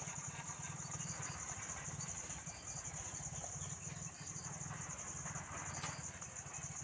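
Insects calling in a steady, high, pulsing chorus, over a low, fast pulsing drone and brief paired chirps that recur every second or so.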